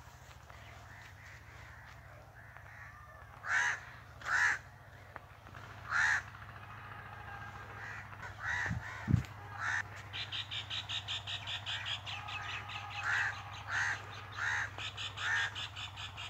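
Crows cawing, short single harsh caws every second or so. From about ten seconds in, a fast pulsed chatter of another bird runs alongside, and a dull thump comes about nine seconds in over a low steady hum.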